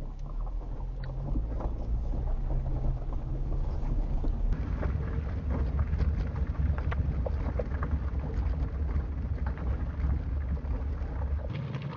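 Vehicle driving slowly over a rough, rocky dirt road: a steady low engine and road rumble with stones and gravel clicking and crunching under the tyres, getting rougher about halfway through.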